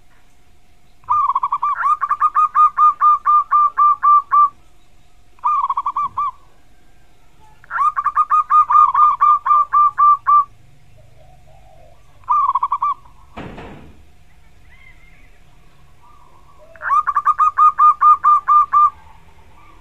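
Zebra dove (perkutut) singing its staccato cooing song: five phrases of rapidly repeated coo notes, about four to five a second, the longest lasting about three seconds. A short dull thump a little past halfway, and a faint steady hum beneath.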